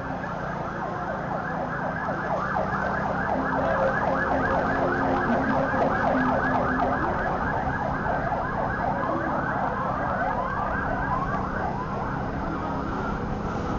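Emergency-vehicle siren in a fast yelp, about four rising-and-falling whoops a second. It grows louder toward the middle and fades near the end, over the steady running of a motorcycle engine.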